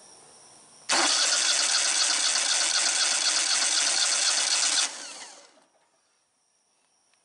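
Kohler 21 hp twin-cylinder engine cranked over by its electric starter for about four seconds, then released and spinning down. This is a spark test, and cylinder one shows no spark, which points to a bad ignition module on that cylinder.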